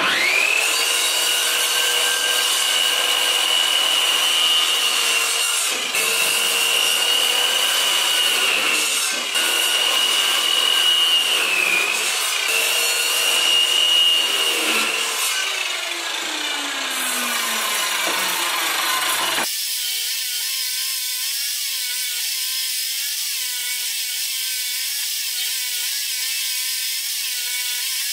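Handheld circular saw starting and ripping along a pine board with a steady high whine that dips a few times under load, then winding down in pitch. About two-thirds of the way in the sound switches abruptly to a different steady machine sound.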